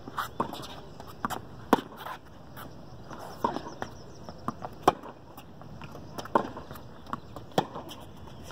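Tennis rally on a hard court: sharp pops of the ball struck by the rackets and bouncing on the court, one every second or so, some much louder than others.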